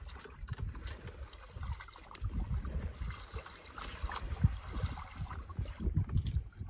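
Water rushing and splashing along the hull of a small sailboat under sail, over a gusty low rumble of wind on the microphone.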